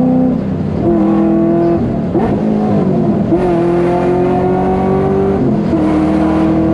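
LS3 V8-swapped Nissan 350Z accelerating hard through the gears. The engine pitch climbs steadily in each gear and drops at the upshifts: about a second in, between two and three seconds in, and near the end.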